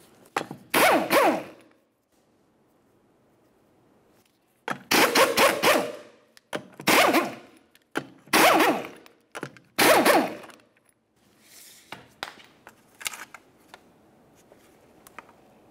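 Impact gun spinning lug nuts off a car wheel: about five short bursts of whirring and hammering in the first ten seconds, one per nut. Light clicks and clatter follow near the end as the loose nuts and hubcap are handled.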